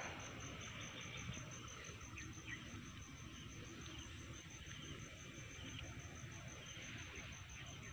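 Faint high-pitched insect chirping, an even pulse of about five a second, over a quiet outdoor background.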